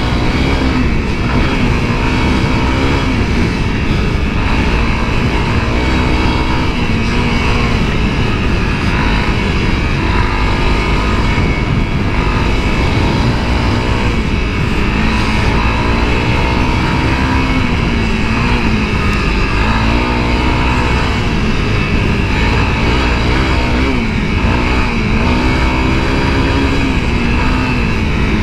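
2017 Honda CRF250L's single-cylinder four-stroke engine running under load while ridden off-road, its revs rising and falling again and again.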